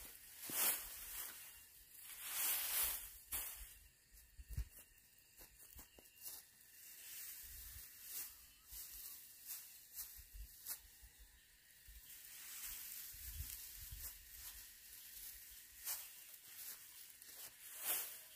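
Dry straw rustling and crackling as it is gathered up and moved by hand. The loudest surges come in the first three seconds, followed by fainter, scattered rustles and snaps.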